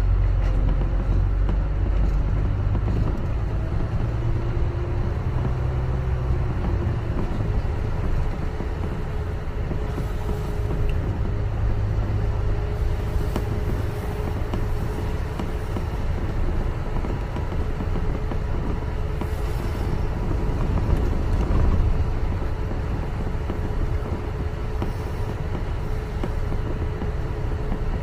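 Double-decker bus on the move, heard from inside on the upper deck: a continuous low engine and road rumble with a thin steady whine. The rumble is heaviest in the first few seconds and swells twice more, about halfway and near the end.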